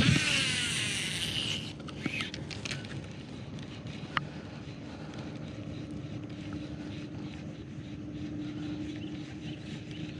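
A rod cast: a sharp swish, then the fishing reel's spool whirring as line pays out, falling in pitch over about a second and a half. A few light clicks and ticks follow, then a faint steady low hum.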